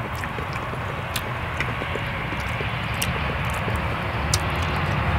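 A steady low rumble in the background, growing slightly louder, with scattered light clicks of cutlery on plates during eating.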